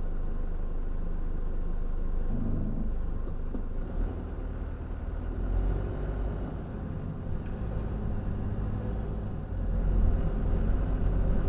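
Low, steady engine and road rumble of a van heard from inside its cab as it creeps forward in a queue and pulls away, growing louder about ten seconds in.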